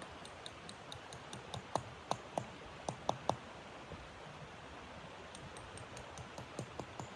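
Irregular sharp clicks and snaps over a steady hiss, bunched loudest between about one and a half and three and a half seconds in.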